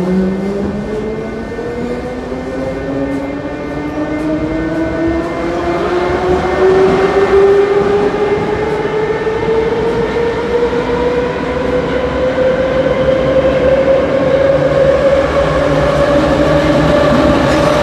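81-717/714.5M Moscow metro train accelerating, its traction drive giving a whine that rises steadily in pitch over the rumble of the wheels, growing louder about a third of the way in.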